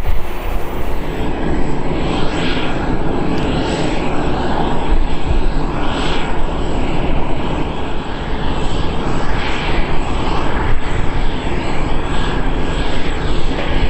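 Jet engines of a Boeing 747-8 freighter running at low power: a steady rumble and hiss with a constant thin high whine, swelling now and then.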